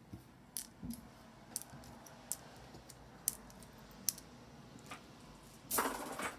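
Small pieces of costume jewelry clicking as they are handled and dropped one at a time, about one light click a second, with a brief louder rustle near the end.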